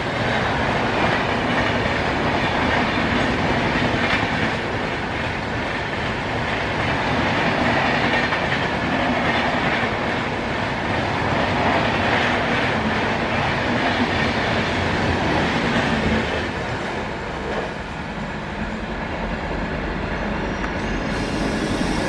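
Passenger coaches of an express train rushing past at speed, their wheels clattering over the rail joints with a steady rush of noise. About 17 seconds in the sound eases and thins as the last coach passes and the train moves away.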